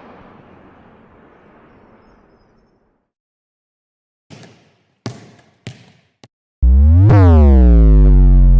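A series of separate sound effects: a noise fades away, four short sharp knocks follow about half a second apart, then a loud, low electronic buzz with sweeping overtones sounds for a little over two seconds.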